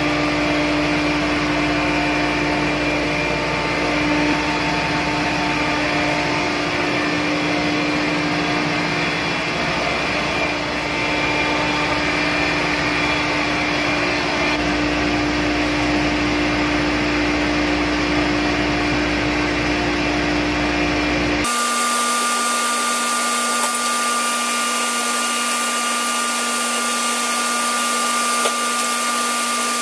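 Steady drone of running engine-room machinery around a Sperre XW180 marine air compressor: a low hum with several steady tones over it. About two-thirds of the way through, the sound switches abruptly to a different steady drone with no low rumble and a higher steady whine.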